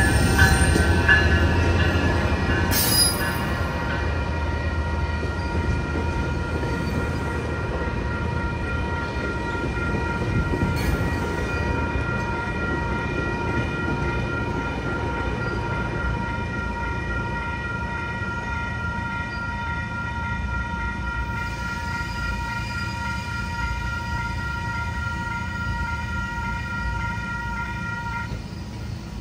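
Diesel-hauled passenger train running past: a steady low rumble with steady high-pitched tones above it that stop near the end. A sharp knock about three seconds in.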